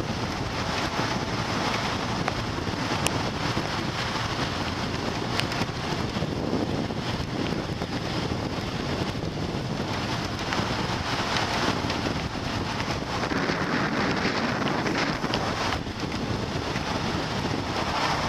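Wind rushing over the microphone of a moving motorbike, over steady engine and road noise.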